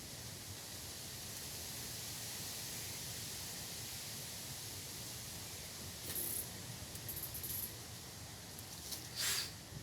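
Steady faint hiss, with brief rustles about six and seven seconds in and a short sharp scrape or knock near the end.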